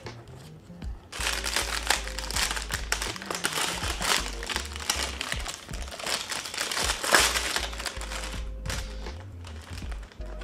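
Crinkling and rustling of a thin clear plastic wrapper as a plush toy is pulled from a cardboard mystery box and unwrapped. It starts about a second in, eases off near the end, then crinkles again briefly, with background music underneath.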